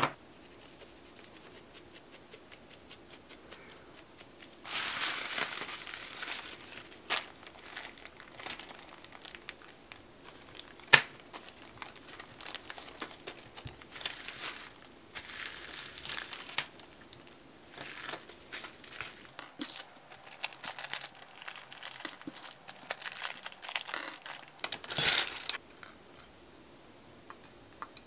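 Small plastic zip-lock bags and bubble-wrap packing crinkling and rustling as they are handled, broken by scattered sharp clicks. A quick run of light ticks comes near the start.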